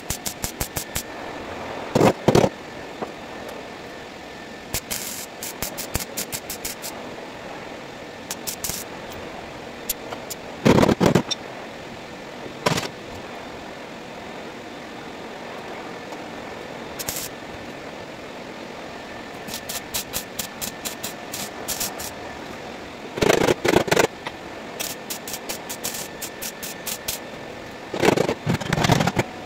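Welder laying spot welds into car-body sheet metal, crackling in five short bursts of about half a second to a second each, with runs of rapid light ticking between them.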